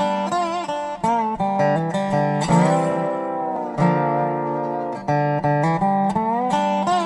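Instrumental intro of a country-rock song, led by guitar: quickly picked notes, some bent in pitch, with a couple of chords left ringing partway through.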